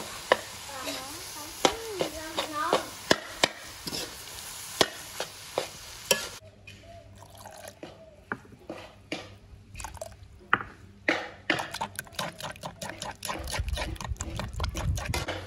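A metal spatula scrapes and taps around a steel wok of frying shrimp fried rice over a steady sizzle. About six seconds in, the sizzle gives way to a metal spoon clicking and scraping as it stirs chilli sauce in a wooden mortar.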